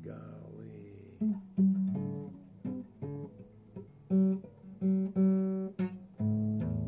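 A guitar picking out a slow melody in single plucked notes, each ringing and fading before the next, about ten notes, with a longer held note near the end.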